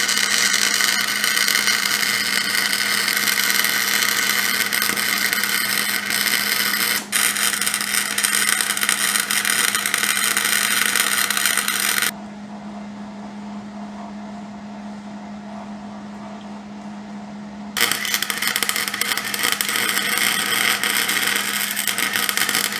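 Wire-feed welder arc laying beads on the steel spider gears of an open differential to weld it solid: a loud, steady crackling hiss. It breaks briefly about seven seconds in, stops for about six seconds around the middle with only a low hum left, then starts again.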